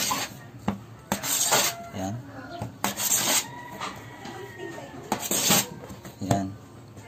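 Bread dough being pulled apart and pressed by hand on a metal worktable: intermittent rubbing, scraping swishes with light knocks, about four main swishes.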